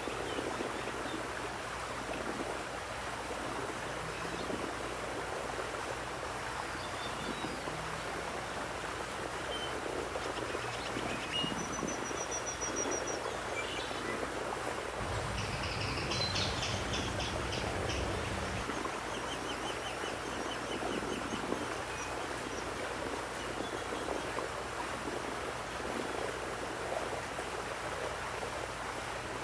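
Steady sound of running water, with songbirds chirping and trilling now and then, most through the middle stretch. A low rumble joins for a few seconds about halfway through.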